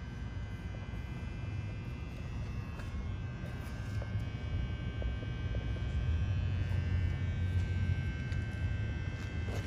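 Steady low mechanical drone with a thin high-pitched whine over it, swelling a little about six seconds in; a few faint clicks.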